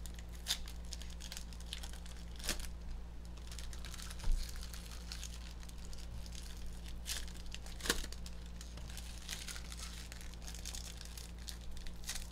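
A stack of hockey trading cards being handled and flipped through by hand: soft sliding and crinkling with a few sharp card flicks, over a steady low hum.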